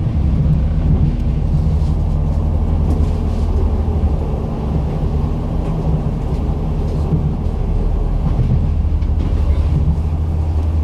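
Steady low rumble of a train running, with a few faint ticks now and then.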